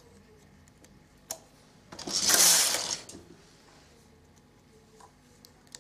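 Knitting machine carriage pushed once across the needle bed, a rattling sweep lasting about a second, knitting one row. Before and after it come a few light metal clicks as a transfer tool hooks a side loop onto the edge needle.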